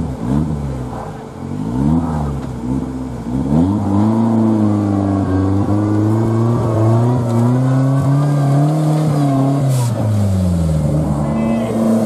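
A modified off-road competition 4x4's engine revving in quick blips, then held at higher revs with slow rises and falls as it works over a steep dirt slope. The revs drop away near the end.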